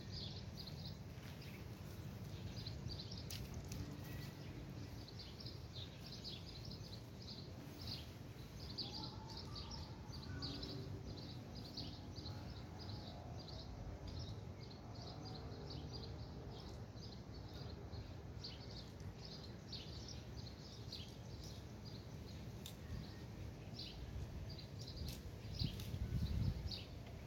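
Small birds chirping over and over, over a steady low outdoor rumble. The rumble swells briefly near the end.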